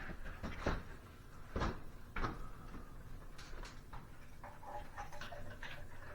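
Irregular clicks and knocks of a ceiling fan's switch housing and parts being handled as wires are stuffed into the housing.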